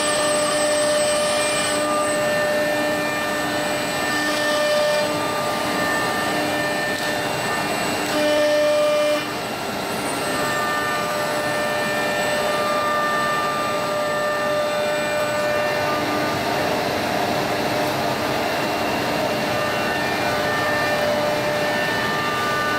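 CNC woodworking router line running: steady motor whines that switch on and off over a constant machine noise, with a short louder stretch about eight seconds in.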